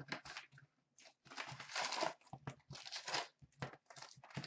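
A 2016-17 Upper Deck SP Authentic hockey card box being torn open by hand: irregular tearing and crinkling of cardboard and wrapping, in a string of short bursts.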